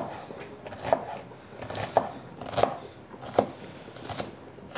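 Chef's knife chopping onion on a wooden cutting board: about seven sharp knocks of the blade on the board, a little under a second apart.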